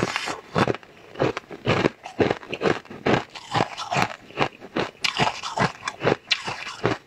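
Close-miked eating: a person biting and crunching pieces of a hard, brittle purple treat, with about two sharp crunches a second between chewing.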